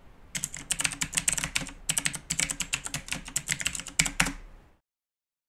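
Computer keyboard typing a command in a quick run of keystrokes, with a short break about one and a half seconds in. A louder keystroke comes about four seconds in, just before the typing stops.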